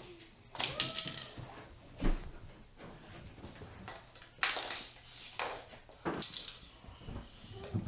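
A metal-framed baby gate rattling and knocking as a toddler pulls up on it and pushes its mesh panel, with a dull thump about two seconds in.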